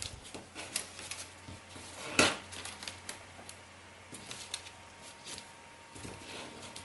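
Kami origami paper rustling and crinkling as fingers fold and crease it: scattered small clicks and rubs, with one louder rustle about two seconds in.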